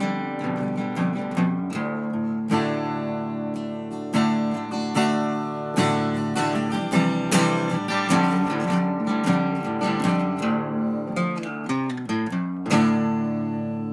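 Background music: acoustic guitar, strummed and plucked chords.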